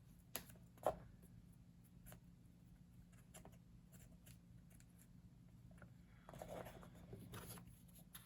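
Faint handling of thin old book pages: a couple of light taps in the first second, then a soft papery rustle and scrape about six seconds in, over a low steady hum.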